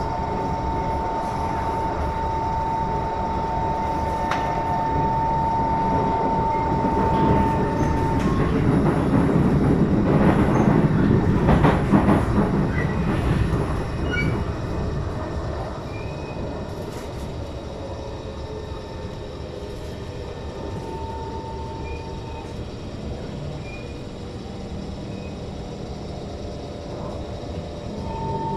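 SMRT MRT train running on the track, a steady rumble with a high whine held for the first several seconds. The running noise swells loudest around the middle, then settles quieter, with the whine coming back briefly.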